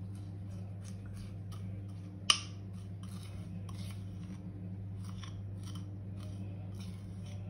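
Metal spoon scraping a thick pistachio and kadayıf filling out of a ceramic bowl: a string of short scrapes, with one sharp clink a little over two seconds in. A steady low hum runs underneath.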